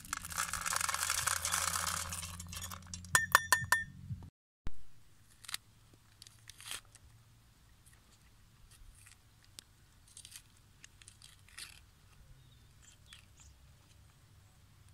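Kidney beans and chickpeas poured from metal bowls into a metal pot: a rushing rattle for about three seconds, then several sharp ringing metal clinks as the bowls knock the pot. After that, a knife peeling a red onion: faint, scattered crackles and scrapes of the dry skin.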